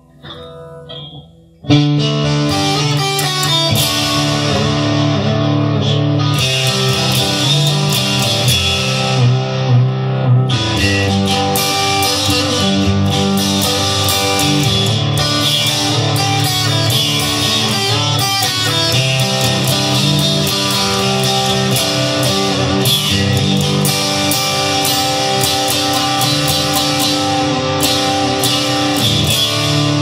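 Guitar music: a few soft tones, then loud guitar music comes in suddenly about two seconds in and carries on steadily.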